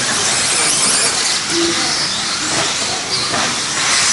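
Several electric 1/10-scale RC buggies racing on the track, their motors and tyres making a steady high hiss with faint wavering whines.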